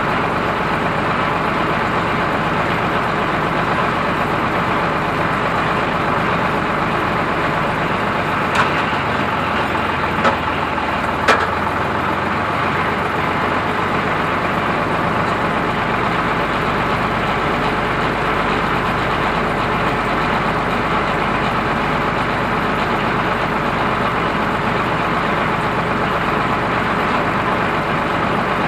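Ford 3600 tractor engine idling steadily close by, with three short knocks about a third of the way through.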